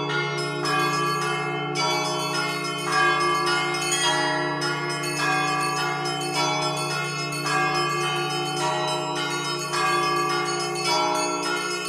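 A set of eleven church bells rung by one ringer pulling ropes, ringing for the evening service. Small bells are struck in a quick rhythmic pattern, several strikes a second, over the low tones of the larger bells, which ring on the whole time.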